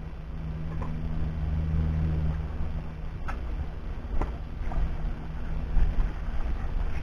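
A steady low mechanical hum with wind rumbling on the microphone and a few faint clicks.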